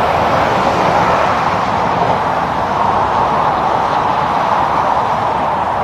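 Steady noise of road traffic passing close by, mostly the rush of tyres on pavement with engine sound blended in.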